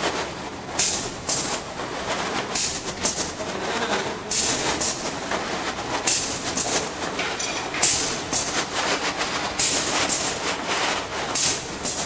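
Zip-lock plastic bag making machine running in a steady cycle: sharp hisses, mostly in pairs, come about every two seconds over a continuous mechanical clatter.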